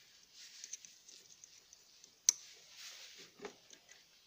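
Hands handling a washing machine's control board and its wires: faint rustling and small clicks, with one sharp click about two seconds in.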